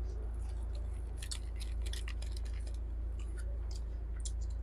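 Close-up eating sounds: chewing with a scatter of small sharp clicks and smacks, thickest in the first half, over a steady low hum.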